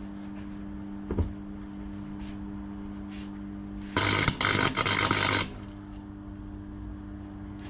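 Welding arc crackling in a burst of about a second and a half, broken twice, filling gaps in a car's suspension mount, with another short burst starting at the very end. A steady electrical hum runs underneath, and a single knock sounds about a second in.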